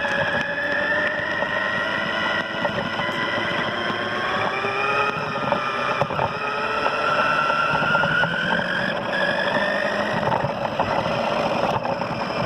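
Small electric motor of a cheap toy RC car whining as it drives, its pitch rising and falling as it speeds up and slows, over the rough rolling noise of its wheels on concrete.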